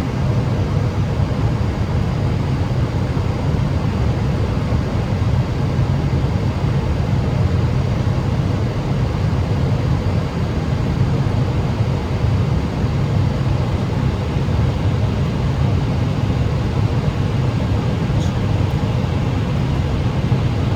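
Steady low rumble of an Airbus A321's engines and airflow on its landing approach, even in level throughout.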